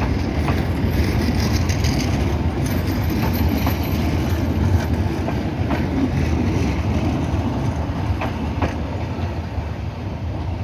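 Narrow-gauge passenger coaches rolling past on the rails: a steady rumble with scattered clicks of wheels over rail joints, easing slightly as the train draws away.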